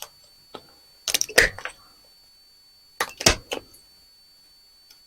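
Plastic and metal parts of a CD/DVD drive snapping and clinking as it is pried apart by hand, in two quick clusters of sharp clicks about a second in and about three seconds in.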